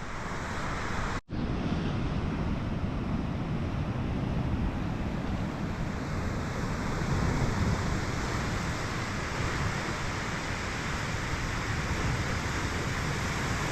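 Sea surf washing onto a beach: a continuous rushing noise that cuts out for a moment about a second in.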